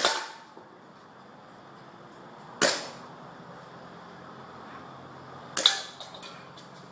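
R28 Kimber airsoft pistol firing three single shots a few seconds apart, each a sharp crack that dies away quickly; a few faint clicks follow the third.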